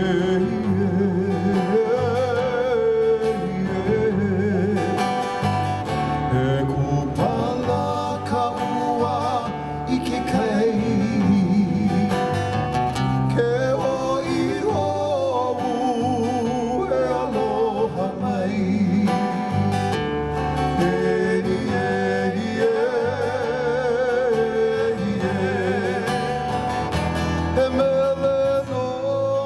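Hawaiian hula song: a singer with a wavering, vibrato voice over strummed acoustic guitar and a steady bass line.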